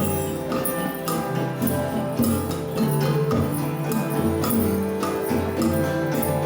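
Improvised acoustic instrument music: sustained droning tones with jingling percussion struck about twice a second.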